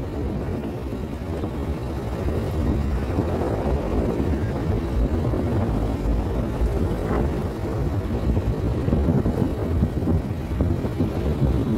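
Steady low rumble of a vehicle driving along a rain-soaked street, with engine and tyre-on-wet-road noise.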